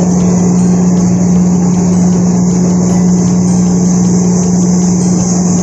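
Steady, loud mechanical drone: a constant low hum with a hiss above it, with no changes in pitch or level.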